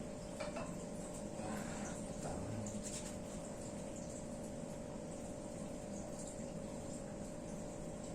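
Quiet room tone with a steady faint hum and a few soft clicks in the first few seconds.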